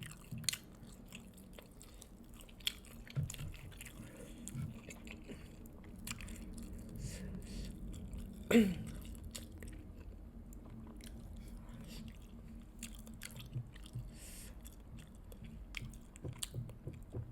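Close-miked chewing, biting and lip-smacking on fried chicken drumsticks, with many short wet clicks and crunches. One louder, sudden mouth sound comes about halfway through, its pitch dropping quickly.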